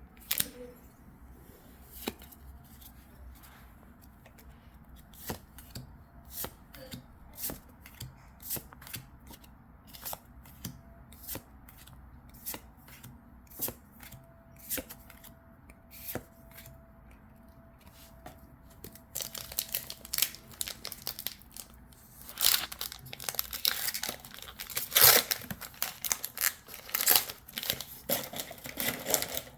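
Pokémon trading cards handled one by one, with soft scattered clicks as they slide against each other. In the last third this gives way to a denser, louder crinkling and tearing of a foil booster pack wrapper being ripped open.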